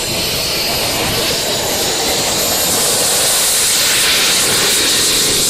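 Model jet turbine engine (16 kg thrust) of a giant L-39 Albatros running at high power with a loud, even hiss that grows brighter and a little louder over the first few seconds, as the jet makes its takeoff roll.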